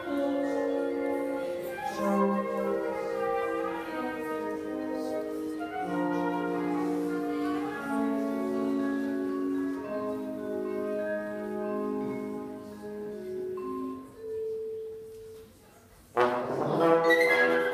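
Live trio of trombone, flute and marimba playing a tango-style piece, the trombone's sustained melody to the fore. The music drops almost to silence for about a second near the end, then comes back in loud.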